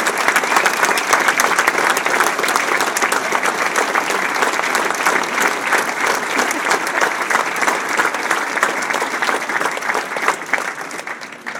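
Audience applauding, a long round of dense clapping that thins out and dies away near the end.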